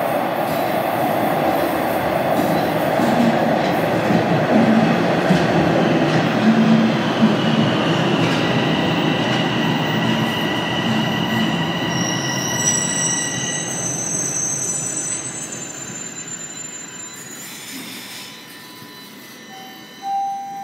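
Bombardier Toronto Rocket subway train pulling into an underground station: a loud rush of wheels on rail that fades as it slows, with high brake and wheel squeals in the middle. Near the end, as it stops, there is a short tone and a thump as its doors open.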